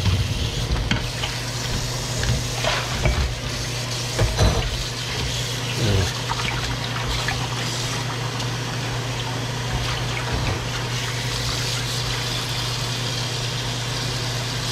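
Kitchen faucet running steadily into a stainless-steel sink and over fish pieces being rinsed by hand, a constant splashing hiss. There are a few sharp knocks of dishes and a plastic colander being handled in the first six seconds.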